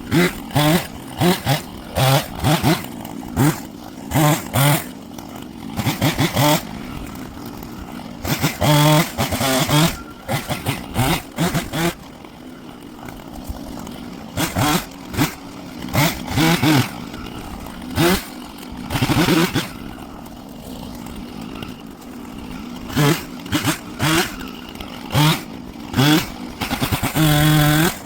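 An engine running, with frequent short loud bursts of revving over a steady lower drone.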